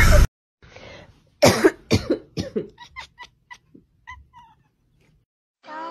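Tabby cat making a quick string of about a dozen short vocal sounds over some three seconds. The first ones are harsh and falling, and the later ones are brief, clearer notes that fade away.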